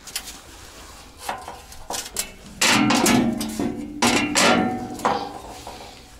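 A steel engine skid plate for a Lada Niva being struck with a metal tool. A few light knocks come first, then two loud bouts of clanging about a second and a half apart, each leaving the plate ringing with a metallic tone that fades.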